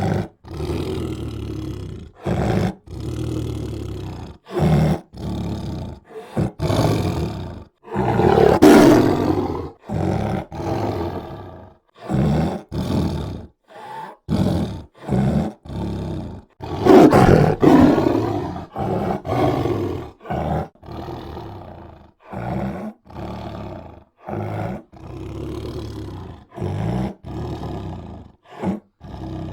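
Tiger roaring again and again in short calls separated by brief gaps, with two longer, louder roars about eight seconds in and again about seventeen seconds in.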